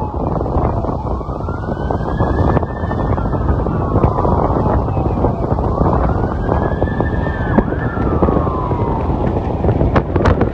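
Emergency medic squad's siren on a slow wail, its pitch rising and falling about every two and a half seconds, heard at a distance under heavy road rumble and wind on the microphone.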